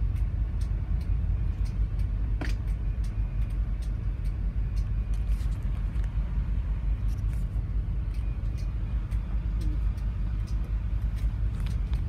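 Steady low rumble of a container ship's engines and machinery, heard from the bridge, with a few faint clicks.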